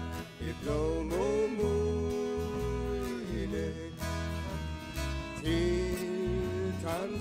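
Live acoustic band music: fiddle, accordion, guitar and bass guitar playing a song in a country-folk style, with men's voices singing at the start.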